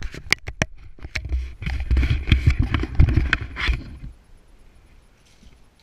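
Handling noise from a hand-held camera being moved and carried: a string of clicks, knocks and rubbing with low rumble, which dies away about four seconds in.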